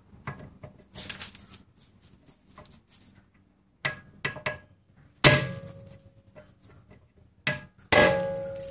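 Hammer striking a hand impact driver set in the rotor retaining screw of a 2003 Honda Accord's rear brake disc, to shock the rusted screw loose. A few light taps set the tool, then come two hard blows nearly three seconds apart, each leaving a metallic ring that dies away slowly.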